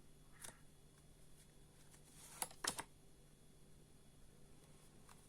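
Near silence broken by a few soft clicks and taps: a playing card being drawn and laid on the table, a faint tap about half a second in and a sharper pair of taps a little past halfway.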